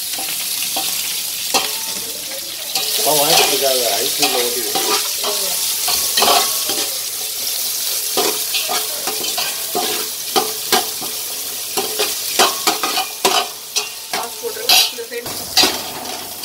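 Sliced shallots and green chillies sizzling in hot ghee in a large metal pot, with a metal spoon clinking and scraping against the pot as they are stirred.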